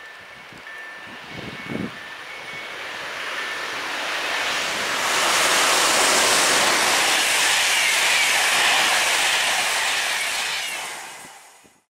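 Siemens Vectron electric locomotive X4E-626 with an EuroCity passenger train passing at speed: a rising rush of wheel and air noise that peaks about halfway through and fades as the coaches go by, then cuts off suddenly.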